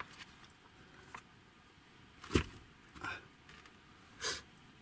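Quiet handling sounds at a table: a sharp knock about halfway through, with a few soft clicks and rustles around it.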